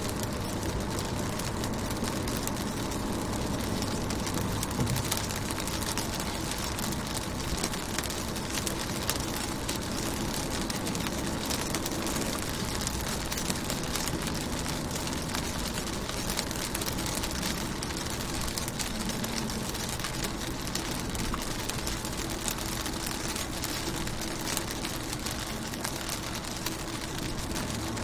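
Rain falling on a car's windows, heard from inside the car: a steady hiss of rain with scattered drop ticks over a constant low rumble.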